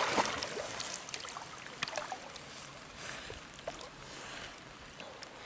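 Lake water splashing and lapping around dogs swimming close to the microphone, with scattered small ticks of rain hitting the water. The splashing is loudest in the first second and fades as the dogs pull away.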